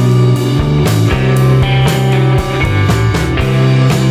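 Rock music with electric guitar and drums playing a steady beat.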